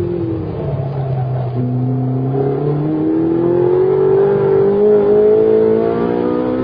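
Ferrari 458 Italia's V8 engine heard from inside the cabin under hard driving. The engine note drops over the first half second, then climbs steadily in pitch from about a second and a half in as the car accelerates through the gear.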